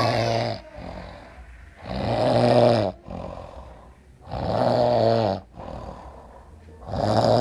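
A man snoring in deep sleep: a long, rasping snore about every two and a half seconds, with quieter breathing between.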